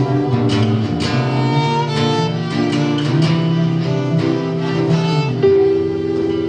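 Live band playing an instrumental passage: a plucked guitar with a sustained, string-like lead melody over it. About five seconds in, a long held note begins.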